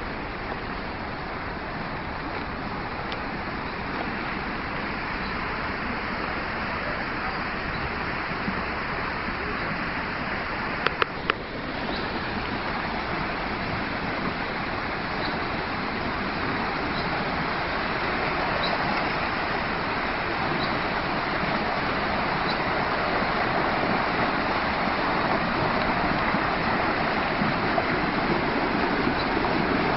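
Floodwater rushing over stones in a swollen stream, a steady rushing noise that slowly grows louder. Three sharp clicks come about eleven seconds in.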